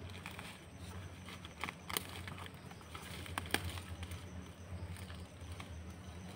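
A few sharp knocks or clicks, the loudest about two seconds in and about three and a half seconds in, over a steady low hum.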